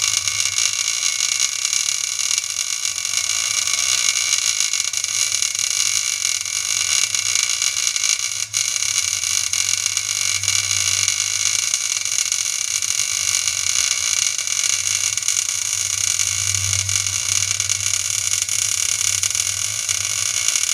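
Steady, unbroken hiss of an electric arc working metal, with a low hum beneath. It drops out for an instant about eight seconds in.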